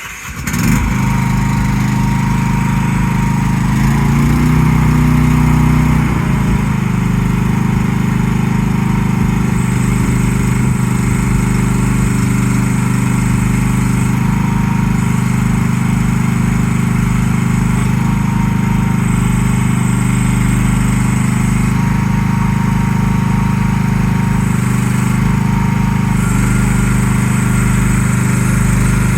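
A 2025 CFG QK16R mini excavator's engine running steadily, speeding up briefly about four seconds in and then settling back. A thin high whine comes and goes over it.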